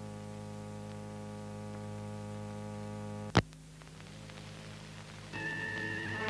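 Steady low electrical hum on the old film soundtrack, broken by one sharp click about halfway through. Music comes back in near the end.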